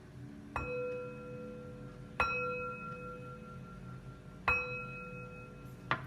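Tibetan singing bowl struck three times, about a second and a half to two seconds apart. Each strike rings with several steady overtones that fade out. A brief light tap comes near the end.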